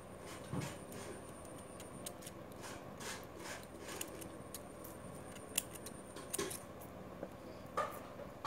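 Small scissors snipping and scraping at the wire braid and foil of a coaxial antenna cable's stripped end. It is a scatter of small, irregular clicks and snips, with a few sharper ones in the second half.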